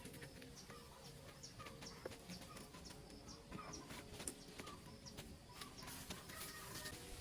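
Faint forest ambience with a small bird's short, high chirps repeating about twice a second.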